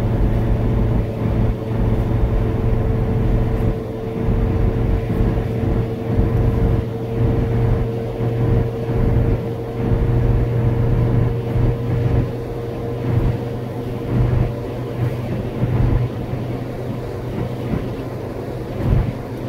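A car driving uphill on a highway: steady engine and tyre noise with a low hum and a faint steady whine that fades out about three-quarters of the way through.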